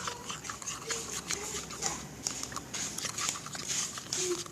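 A spoon stirring fresh slime, glue mixed with activator, in a container: a dense run of small sticky clicks and scrapes as the mixture clumps.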